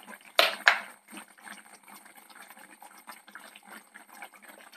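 Thick fish curry bubbling and popping gently in an open clay pot. Two short, sharp noises come about half a second in.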